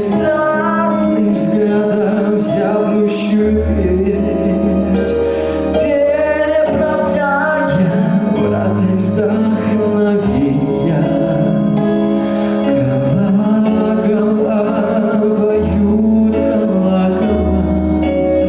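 A song performance: voices singing over instrumental accompaniment, with long held bass notes.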